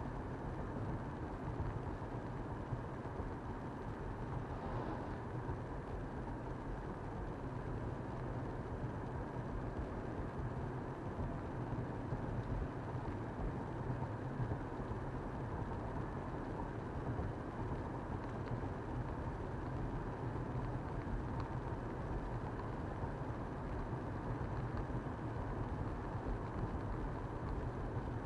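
Steady road noise of a car being driven: engine and tyres running evenly, with no distinct events.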